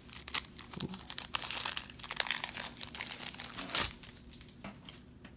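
A trading card pack's wrapper being torn open and crinkled by hand, a dense crackle of rustling that dies down about four seconds in.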